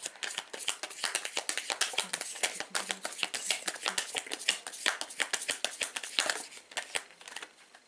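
A deck of tarot cards being shuffled by hand: a fast, dense run of card-on-card clicks and flicks that thins out and stops shortly before the end, ahead of a card being drawn.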